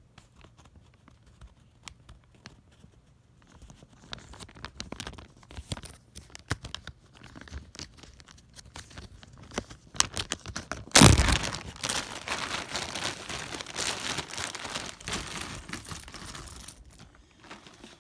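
Plastic zip-top bag crinkling as it is handled, then a bag of small plastic figures dumped out onto carpet. A sudden loud clatter comes about eleven seconds in, followed by several seconds of rattling and crinkling as the figures spill out of the bag.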